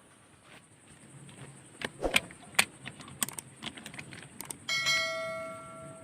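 A run of sharp metallic clicks and clinks, then a struck metal object rings with a clear tone that fades over about a second.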